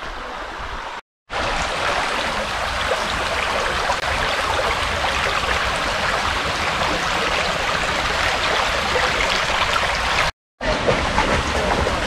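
Shallow woodland burn running over stones: a steady rush of flowing water. It drops out abruptly for a moment twice, about a second in and near the end.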